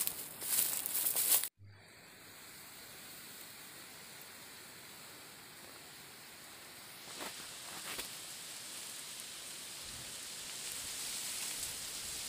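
Footsteps and body brushing through tall dry cogon grass (ilalang), a loud rustling that cuts off suddenly about a second and a half in. After that, a faint steady high hiss of outdoor ambience with a couple of light ticks.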